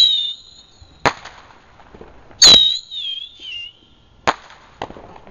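Small consumer fireworks (bottle rockets) going off. Two loud sharp bangs, one right at the start and one about two and a half seconds in, are each followed by a high whistle of about a second that falls in pitch. Three weaker pops come in between and near the end.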